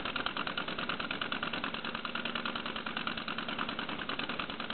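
2½-inch gauge Flying Scotsman model locomotive chassis running fast on compressed air with its boiler removed: a rapid, even beat of the cylinders exhausting and the motion and wheels turning.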